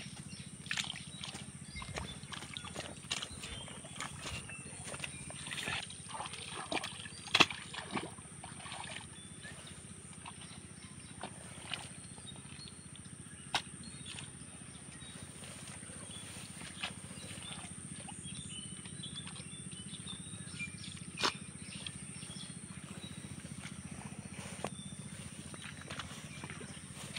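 Scattered wet squelches and splashes of hands working in the mud and water of a flooded rice paddy as weeds and roots are pulled out, busiest a few seconds in, over a steady thin high tone.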